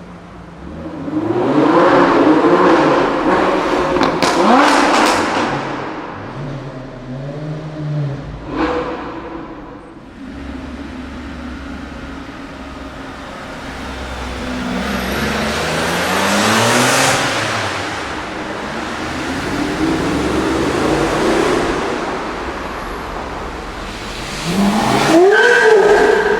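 Supercar engines revving and accelerating through a tunnel as several cars pass, loud swells rising and falling, the biggest about two seconds in, around sixteen seconds in, and a sharp rising rev near the end. Two sharp cracks cut through, one around four seconds in and one near the nine-second mark.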